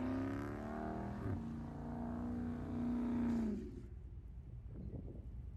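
Dodge Charger Scat Pack's 6.4-litre HEMI V8 held at high revs, its pitch climbing slowly, dipping briefly about a second in and climbing again, then dropping off sharply about three and a half seconds in to a low, quieter rumble.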